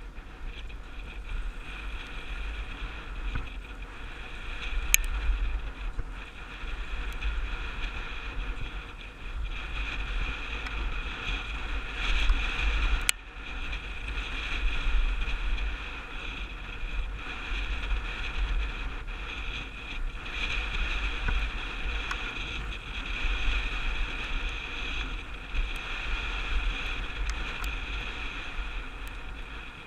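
Wind buffeting the microphone of a helmet-mounted camera while a mountain bike rolls fast down a dirt trail, with a steady rolling hiss from the bike. A sharp click about five seconds in and a louder knock about thirteen seconds in.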